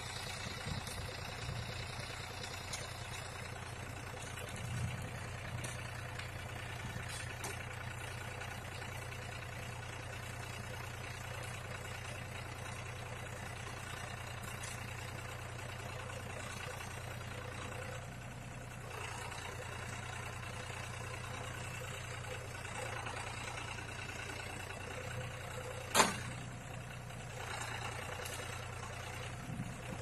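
Compact farm tractor's engine running steadily while it drives a rear-mounted log winch. One sharp knock stands out about 26 seconds in.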